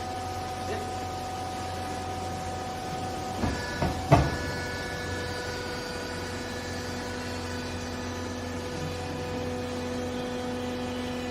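Hydraulic clothes baler running, its motor and pump giving a steady hum with several steady tones, with a couple of sharp knocks about four seconds in.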